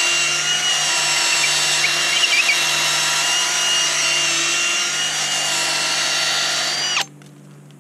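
Power drill with its bit in a hole through a tree limb, running steadily to clear wood chips from the hole drilled for a cable eye bolt; an even whine that dips slightly and cuts off abruptly about seven seconds in.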